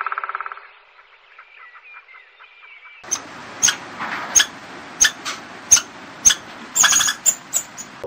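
A squirrel giving a series of about a dozen short, sharp chirping calls, a third to half a second apart, starting about three seconds in. Before that, a woodpecker's rapid drumming on wood stops about half a second in.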